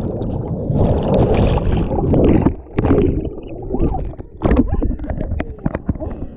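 Rushing, splashing water as a person goes into a river pool. A dense rush of water is followed, about two and a half seconds in, by irregular gurgles and splashes.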